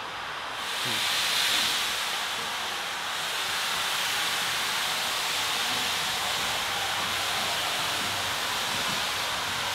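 Steady hiss of steam venting from a narrow-gauge steam locomotive as it approaches slowly. The hiss swells about a second in and then holds steady.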